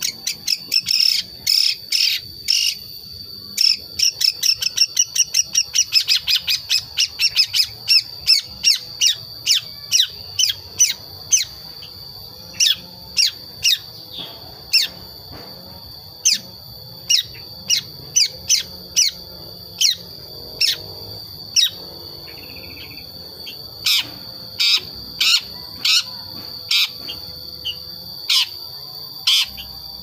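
Young long-tailed shrike (cendet), about five months old, practising its natural chattering calls (ngriwik): a fast run of short, sharp notes in the first several seconds, then slower, spaced calls about one or two a second. A steady high-pitched hum runs underneath.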